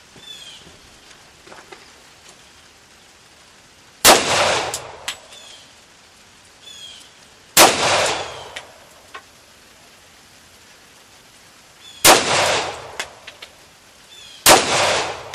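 Four single shots from a Glock pistol, a few seconds apart, each followed by about a second of echo.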